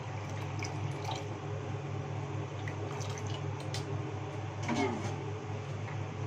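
Water briefly poured from a stainless-steel jug into a plastic bowl of liquid, splashing and dripping, over a steady low hum.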